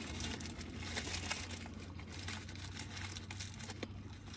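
Paper burger wrapper crinkling and rustling as it is handled, the crackle densest in the first two seconds and thinning out after.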